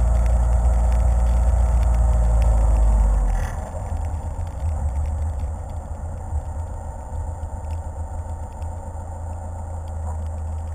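Car driving on a wet road, heard from a camera mounted on the hood: a loud, steady rumble of wind, tyres and engine. About three seconds in it drops to a quieter, lower rumble as the car slows for an intersection.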